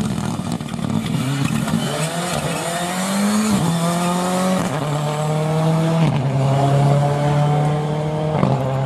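Rally car engine at full throttle, accelerating through the gears: its pitch climbs and drops back sharply at each upshift, three or four times.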